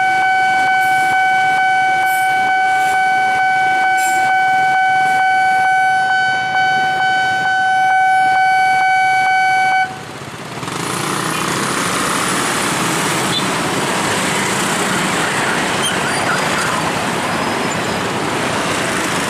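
Railway level-crossing warning alarm sounding one steady high tone with a regular ticking under it as a train passes, cutting off suddenly about ten seconds in. Then the rising noise of motorbike and car engines as traffic moves off across the tracks.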